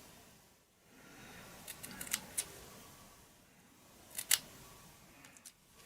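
Scissors cutting card in a few short, sharp snips: a cluster about two seconds in and a louder pair near the four-second mark.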